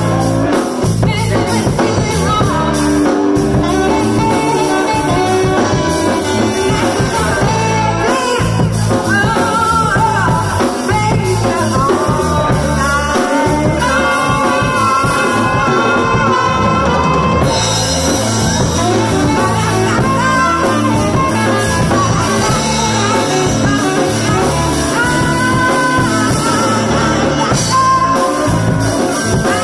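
Live band jamming: a woman singing over an improvised groove with alto saxophone, electric guitar and drum kit, played loud and steady throughout.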